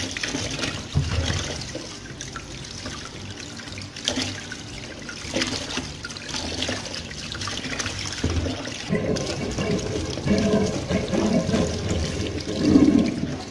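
Kitchen tap running over eels as they are rubbed clean of slime by hand in a basin, with scattered knocks and handling noises. The water sound grows fuller and louder from about nine seconds in.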